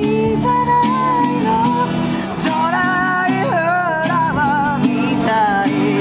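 A solo singer's voice, with vibrato, over a strummed acoustic guitar in a live street performance of a ballad.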